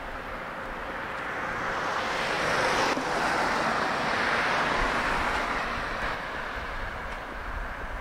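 Shower spray running: a steady rush of falling water that builds over the first couple of seconds, then eases slightly.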